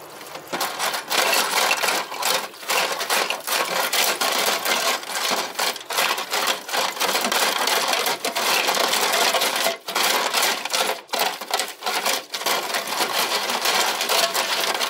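Brush scrubbing a metal tray of wet engine valve springs and retainers, with the steel parts rattling and clinking against each other and the tray in a continuous, busy jumble with brief pauses.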